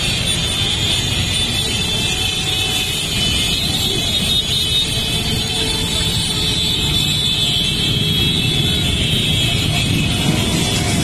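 Steady, dense drone of a large mass of motorcycles riding past together, many engines running at once, with no single one standing out.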